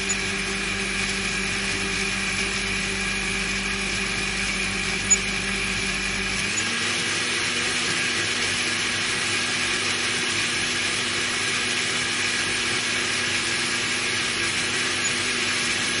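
Electric countertop blender motor running steadily with a whirring hum; about six and a half seconds in the hum steps up slightly in pitch. A single sharp click a little after five seconds.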